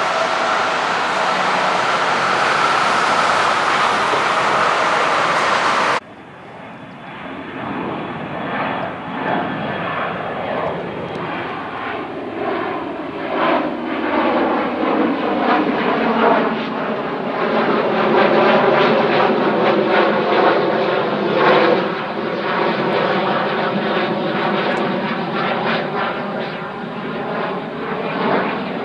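Boeing 737-500 jet engines. For about six seconds there is a steady loud rush with a faint whine as the jet taxis over a motorway bridge with traffic beneath. Then the sound cuts abruptly to the airliner climbing out after takeoff: a crackling jet roar with slowly falling engine tones that swells and eases a little near the end.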